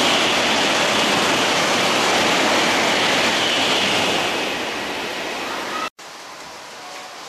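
E4 series double-decker Shinkansen passing through a station at speed in heavy rain: a loud, even rush of wheels, air and flung water spray that fades off about four seconds in. At about six seconds the sound breaks off abruptly, leaving a much quieter hiss of rain.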